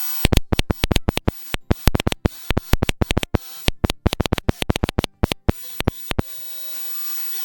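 Pixie2 CW transceiver's audio while Morse code is keyed: a fast, irregular run of loud clicks and pops in the rhythm of the keying, with silent gaps between. About six seconds in, the receiver's hiss and faint broadcast-radio breakthrough come back.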